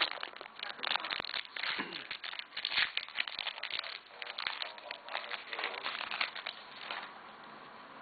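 Plastic wrapper of a trading-card pack crinkling and tearing as it is pulled open by hand, a dense run of crackles that stops about seven seconds in.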